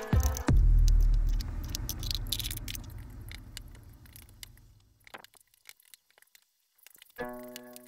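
Spatula scraping and tapping against a wok as rice is stir-fried: many short clicks and scrapes. They sit over a low final music note that fades out over a few seconds, and music starts again near the end.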